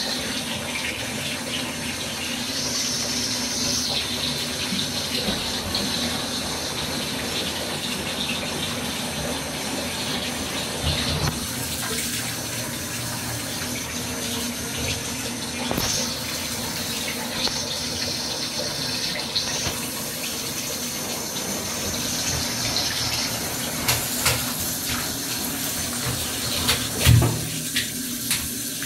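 Tap water running steadily into a bathtub, with occasional knocks and splashes as a serval paws and mouths at the stream, the loudest near the end.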